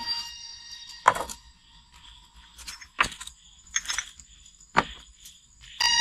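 Three sharp knocks, evenly spaced about two seconds apart, over a shrill steady whine made of several high tones. The whine fades out after the first second and comes back loud near the end.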